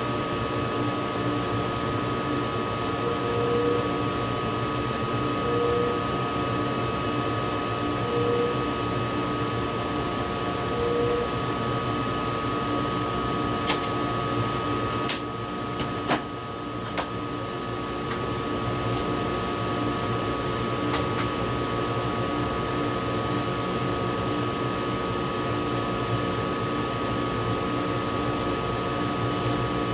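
Steady electrical hum and ventilation whir in the driver's cab of an ICE high-speed train, with several constant tones. Four short beeps come a couple of seconds apart in the first half, and a few sharp clicks sound around the middle.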